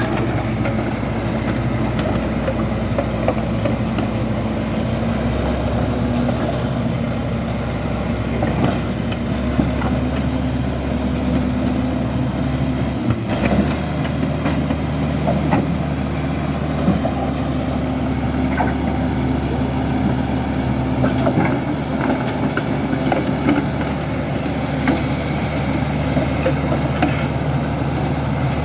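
Bulldozer's diesel engine running steadily under work, with scattered short knocks throughout. The engine note changes about thirteen seconds in.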